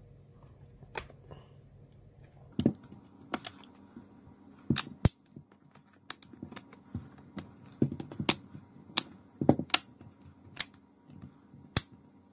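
Plastic back cover of a Samsung Galaxy Tab 4 being pressed onto the frame around its edges, its clips snapping into place in a string of sharp, irregular clicks.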